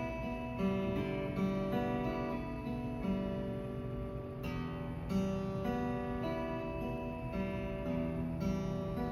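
Acoustic guitar played in a steady stream of picked notes that ring into one another, like a fingerpicked arpeggio pattern.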